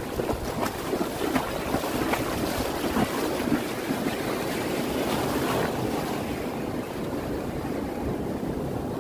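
Shallow surf breaking and washing around the shore, with wind buffeting the microphone; the crackling splash noise eases after about six seconds.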